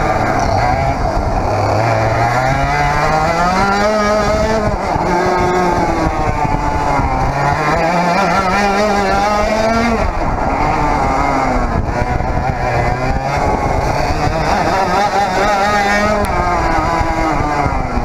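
100cc Parilla reed-valve two-stroke kart engine at racing speed, heard close up from the kart. Its pitch climbs steadily under full throttle, falls away sharply about four and ten seconds in as the throttle comes off, then climbs again.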